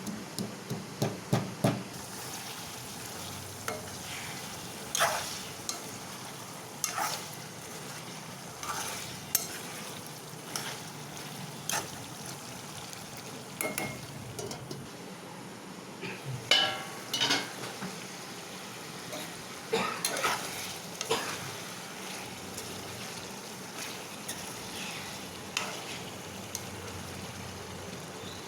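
Chicken frying in a pan: a steady sizzle, with a spatula scraping and knocking against the pan every second or so as it is stirred. A few quick pounding knocks at the start.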